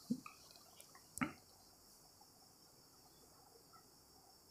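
Quiet room tone: a faint steady high-pitched hiss, with two soft brief sounds about a second apart near the start.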